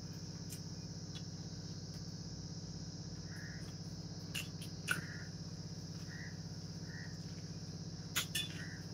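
Quiet hand-eating sounds: chewing and fingers mixing rice on a steel plate, with a few light clicks near the middle and near the end. Under it runs a steady low hum, and a few short faint chirps come and go.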